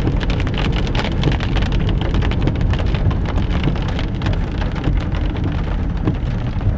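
Heavy rain hitting a moving car's roof and windshield, a dense patter of drops over the low rumble of the car on a wet road.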